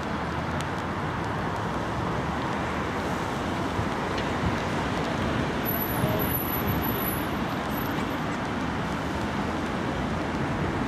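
Steady road traffic noise: an even, low rumble of passing vehicles with no distinct events.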